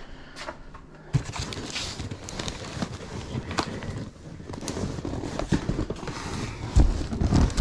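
Stored belongings being rummaged through and moved: irregular knocks, clatter and rustling starting about a second in, with a heavy thump near the end.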